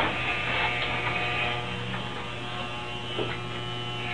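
Corded electric hair clippers running with a steady hum as they shave hair off a head.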